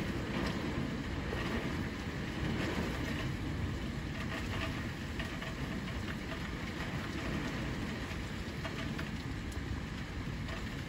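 Storm outside: a steady rush of heavy rain and wind, with scattered sharp ticks of drops or hailstones striking hard surfaces.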